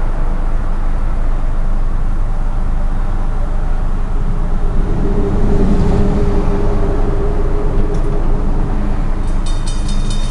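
CSX freight train rumbling past a street-running railroad crossing, a steady low rumble with a held tone over it midway. Near the end a crossing bell starts ringing in fast, even strokes as the gates begin to rise.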